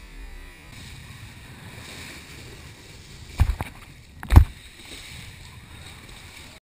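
Wakeboard skimming across the water on a cable tow: a steady rush of water. Partway through come two sharp knocks, a little under a second apart, which are the loudest sounds.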